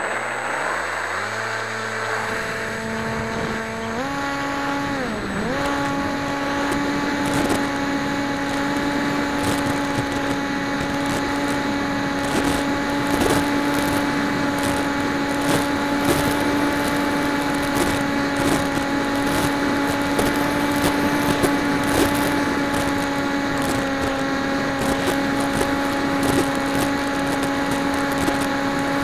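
Electric motor and propeller of a PopWing RC flying wing, heard from its onboard camera: the whine climbs in pitch in steps over the first five seconds as the throttle is opened for launch, then holds a steady drone at full power in flight, over scattered crackling wind noise.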